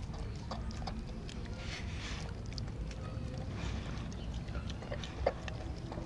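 Doberman chewing and crunching a raw meat meal from a glass dish, with short crunching bursts and a sharp click about five seconds in, over a steady low rumble.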